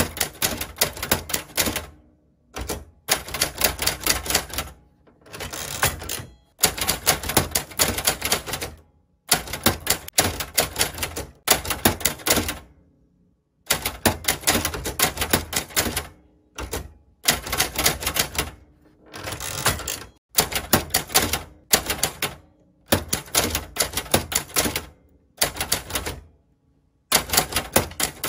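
Hangul typewriter being typed on: runs of rapid key strikes, each a second or more long, broken by short pauses.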